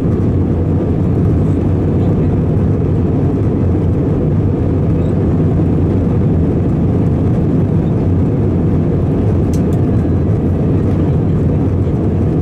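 Steady low roar of an Airbus A320-216's CFM56 engines and the rushing air, heard from inside the passenger cabin.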